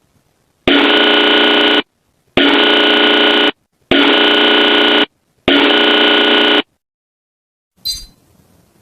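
Emergency-alert warning tone: four harsh, buzzing blasts of about a second each, separated by short gaps, followed by a brief click near the end.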